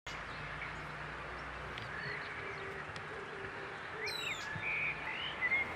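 Outdoor ambience: a steady background hiss with small birds chirping, the chirps coming thicker from about four seconds in.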